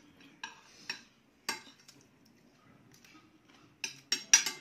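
Metal spoons clinking and scraping against plates while eating: a few scattered clinks, then a quick run of louder ones near the end.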